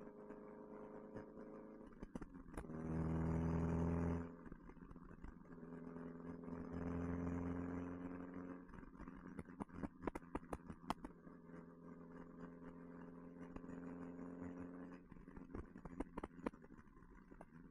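1969 Alfa Romeo Spider's twin-cam four-cylinder engine and aftermarket exhaust running at road speed. It gives a steady hum that swells louder about three seconds in and again around seven seconds, with many sharp ticks over it.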